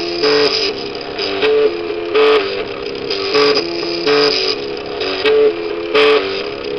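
MakerBot Cupcake CNC 3D printer's stepper motors whining at quickly shifting pitches as the print head and build platform move during a print, with a short louder, noisier burst about once a second.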